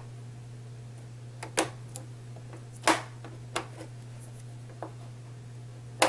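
Several sharp clicks and taps, the loudest about three seconds in, as a sheet of foil and magnetic strips are handled and pressed down on a magnetic mat, over a steady low hum.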